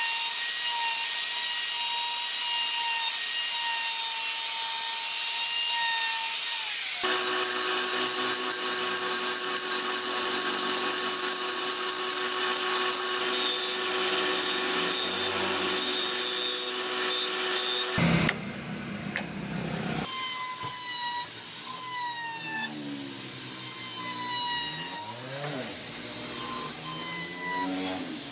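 A handheld trim router runs with a steady high whine while shaping carved wood; about seven seconds in it gives way to a wood lathe running as a hand chisel cuts a turning wheel. After a short noisy burst, a small handheld rotary tool carves grooves in wood, its pitch dipping and rising as it loads and unloads.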